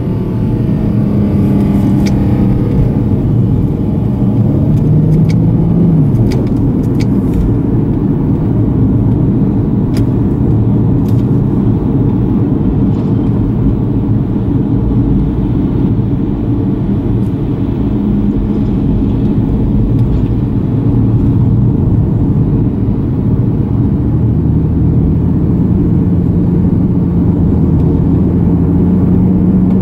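Nissan V36 Skyline 250GT's VQ25 V6 engine and tyre noise heard from inside the cabin while cruising, a steady low rumble. The engine note rises a little about five seconds in and again near the end.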